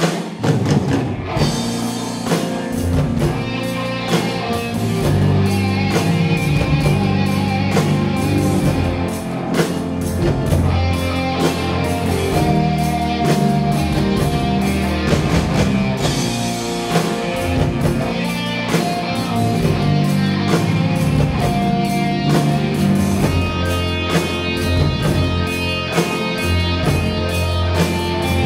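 Live rock band playing an instrumental passage with no vocals: electric guitar over a drum kit and bass.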